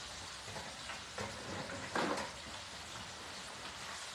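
Hot oil bubbling and sizzling steadily in an electric deep fryer, with two short knocks about one and two seconds in.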